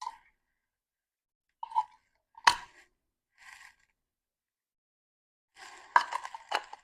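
Packaging being handled while a coffee machine is unboxed: brief rustles and a sharp tap about two and a half seconds in, then a run of crinkling and clicking near the end.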